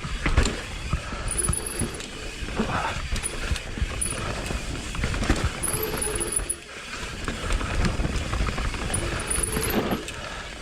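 Mountain bike descending a dirt trail: tyres rolling and scrabbling over the ground, with the chain and frame rattling and clunking over bumps.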